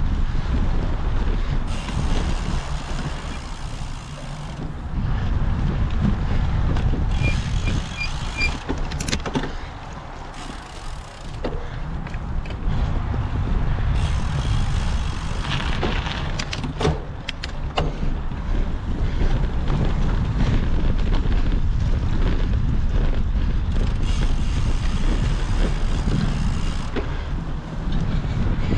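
Wind buffeting the microphone while a cyclocross bike is ridden, with a steady low rumble and scattered sharp rattles and knocks, most around the middle. About seven seconds in there is a quick run of four short beeps.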